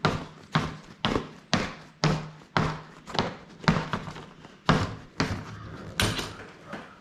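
Lightly inflated fat-bike tire and wheel thumped against a workbench over and over, a steady series of thuds about two a second.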